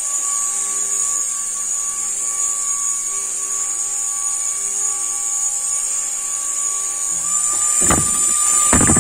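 Small handheld spinner ball drone's propellers and motors whining steadily as it hovers, with a high hiss and a thin tone that step up slightly near the end. Two sharp knocks about a second apart near the end as the ball bumps into something, and the whine cuts off right after.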